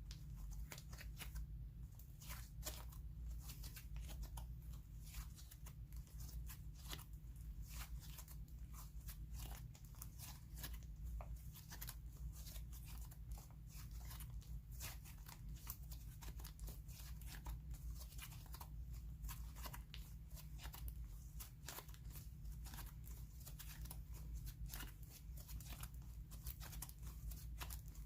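Slime being stretched and squished by hand, giving a dense run of small irregular crackling clicks and pops over a steady low hum.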